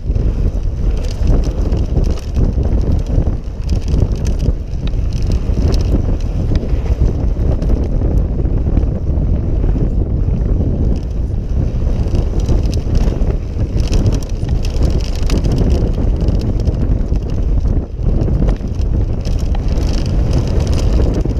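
Yeti SB6 mountain bike riding fast down a dry dirt trail: wind buffeting the camera microphone over the rumble of knobby tyres on dirt, with frequent small knocks and rattles from the bike.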